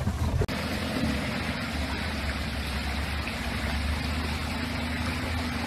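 Suzuki 4x4's engine running steadily at low revs while the vehicle crawls over creek stones, with a steady rush of stream water.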